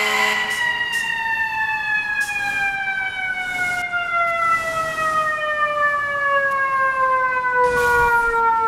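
Fire engine's eQ siren, an electronic imitation of the Federal Q mechanical siren, winding down in one long, slowly falling wail.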